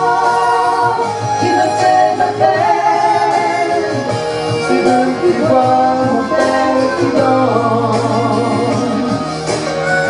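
A man and a woman singing a French pop ballad as a duet into microphones over an instrumental backing track, holding long notes.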